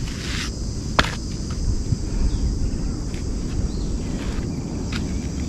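A steady, high chorus of insects, with a low rumble underneath and a single sharp click about a second in.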